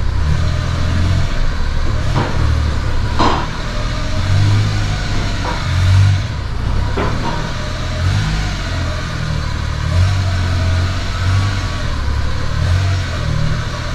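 Suzuki Carry mini truck's small three-cylinder engine running as the truck is driven, a steady low rumble that rises and falls a little, with a few light knocks or rattles in the first half.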